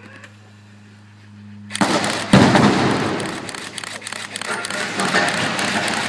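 Demolition charges firing on a water tower: a sudden loud bang about two seconds in, followed by a sustained crackling rumble as the tower begins to tip over.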